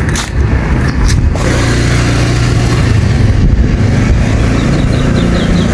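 Motor vehicle engine running steadily nearby, a low hum that sets in about a second and a half in and shifts pitch near the end. It is preceded by short rustling or scraping noises, and a few faint high chirps come near the end.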